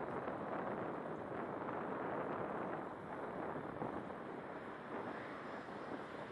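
Steady rushing city-street noise of traffic and wind on the microphone, picked up by a sunglasses camera's small built-in microphone while walking along a sidewalk.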